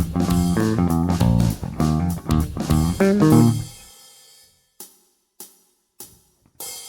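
Five-string Strandberg Boden Standard 5 electric bass, picked, on both neck and bridge pickups as a raw direct signal, playing a quick run of notes. The notes stop and ring out a little past halfway. Four sharp clicks follow at an even beat.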